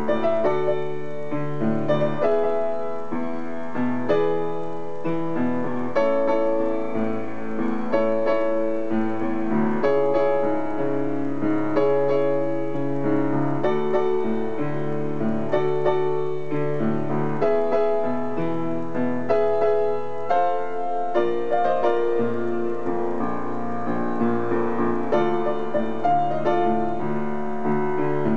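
Upright piano playing a solo arrangement of a J-rock song, with bass notes under a melody in continuous, even playing.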